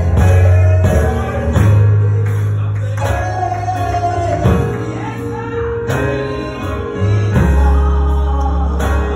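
A woman singing a gospel solo into a microphone, her voice amplified over instrumental accompaniment with deep sustained bass notes.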